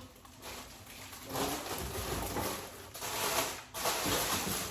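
Rustling and shuffling of groceries in their packaging as vegetables are put into a fridge, coming in two noisy stretches.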